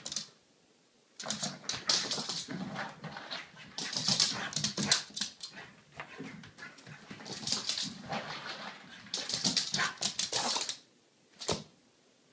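French Bulldog running and scrambling on a hardwood floor, its claws clicking and skittering in several quick bursts with short pauses between, then a single click near the end.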